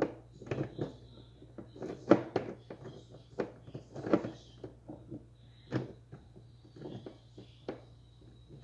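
Irregular soft knocks and clicks, several close together at times, the loudest about two and four seconds in, over a faint steady hum: handling noise.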